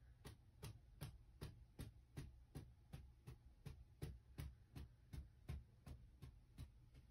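A small dog's body twitching rhythmically in its sleep against a quilted cushion, making faint soft ticks nearly three times a second; the dog is dreaming, its hindquarters shaking hard.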